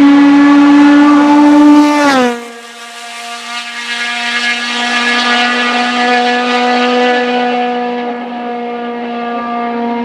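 Honda Civic hatchback hill-climb car running flat out at high revs past the listener. About two seconds in, the engine note drops sharply in pitch and loudness as it goes by. It then holds a steady note as the car pulls away up the road, fading a little near the end.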